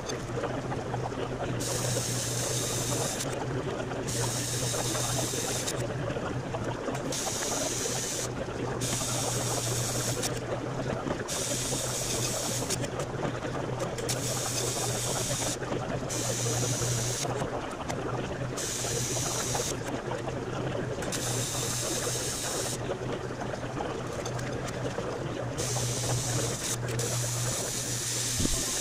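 AC TIG welding arc on aluminum body panels: a steady buzzing hiss with a low electrical hum under it. A sharper high hiss swells and fades every two seconds or so as the weld moves along the seam.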